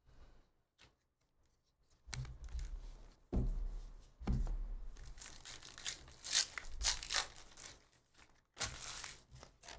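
Foil trading-card pack wrapper being torn open and crinkled, in a run of rustling bursts that start about two seconds in.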